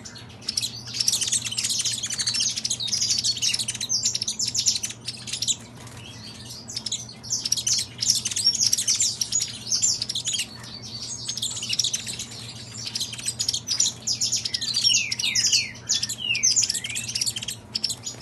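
Caged saffron finches, a Peruvian canary and a mutation canário-da-terra, singing against each other. The song is a dense run of fast chirps and quick downward-sliding whistled notes, with brief lulls about six and eleven seconds in.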